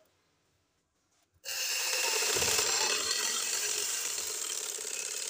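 Sewing machine stitching a seam. It starts abruptly after about a second and a half of quiet, gives a low thump as it gets going, then runs steadily.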